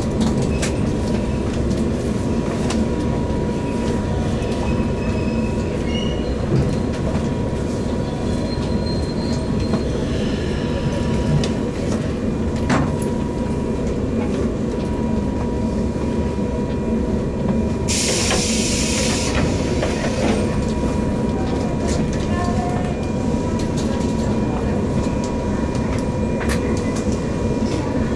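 JR West 117 series electric train running, heard from inside the car: a steady rumble of wheels on rail with some clatter. About two-thirds of the way through there is a short hiss of air lasting a second or two.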